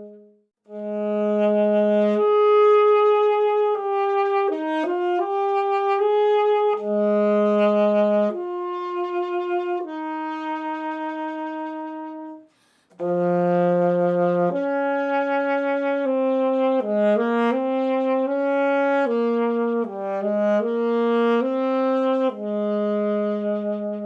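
Solo alto saxophone playing short melodic phrases of held and moving notes. The first phrases are on a Yamaha YAS-62; after a brief pause about halfway through, the phrases are on a Selmer Paris Seles Axos.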